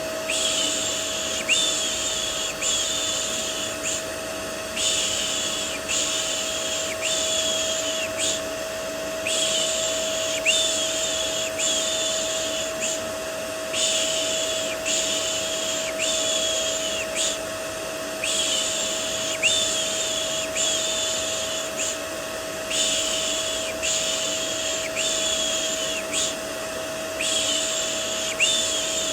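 Vacuum cleaner running steadily with a constant motor whine, overlaid with a person's repeated 'shh' shushing. The shushes come about once a second, in runs of several with short pauses between them.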